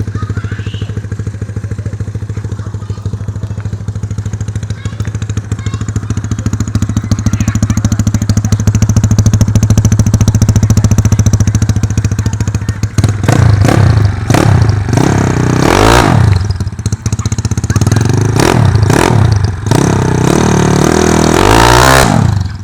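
Yamaha Mio scooter's freshly rebuilt, not yet fully run-in single-cylinder engine idling steadily. From about 13 seconds in it is revved in several quick blips that rise and fall, with a longer rev near the end.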